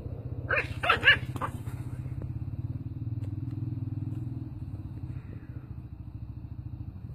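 Jack Russell terrier guarding a piece of meat, growling low and unbroken, with a burst of about four sharp barks about a second in.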